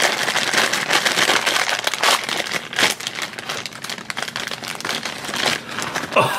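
Shiny black plastic wrapper of a Funko Mystery Minis blind-box figure crinkling and rustling as hands work it open and pull the vinyl figure out, with many irregular crackles.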